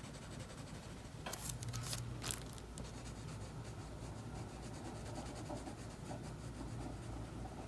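Drawing strokes on paper while the lettering is coloured in: a few quick scratchy strokes about a second in, then faint rubbing, with a low steady hum underneath.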